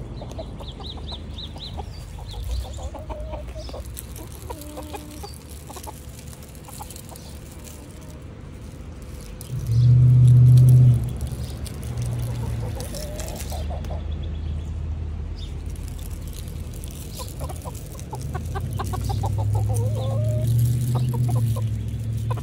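Silkie chickens clucking while being fed, short calls that come thickest near the end. A brief low rumble a little after ten seconds in is the loudest sound.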